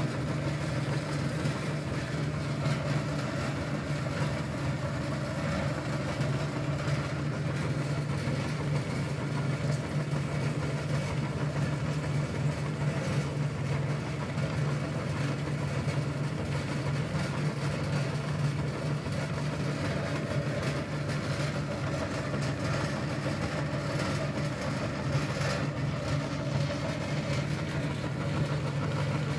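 Electric meat grinder running steadily, a constant motor hum with the auger turning and pushing the last potato-chip crumbs through the cutting plate.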